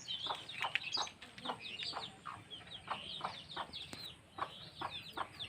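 Chickens calling: a run of short clucks mixed with many overlapping high chirping calls, going on busily without pause.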